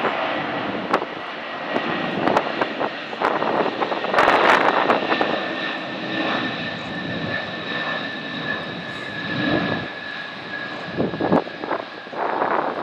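Antonov An-225 Mriya's six Progress D-18T turbofans at takeoff power as the giant freighter climbs away: a heavy jet roar with a thin whine whose pitch sinks slowly as the aircraft moves off.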